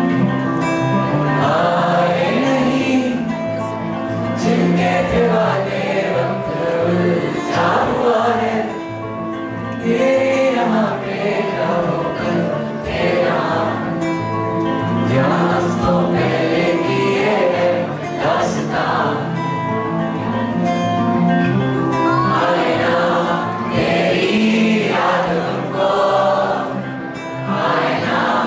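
A live acoustic song: singing over a strummed acoustic guitar, with what sounds like many voices singing together as the crowd sings along.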